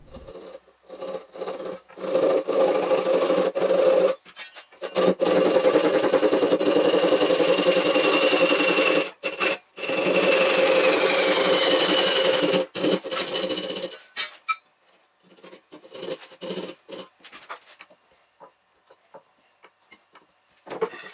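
Hand backsaw sawing wood, played back at four times speed, so the strokes run together into a fast rasping buzz with a few short pauses. About fourteen seconds in the sawing stops, leaving only light knocks and scrapes of tools being handled.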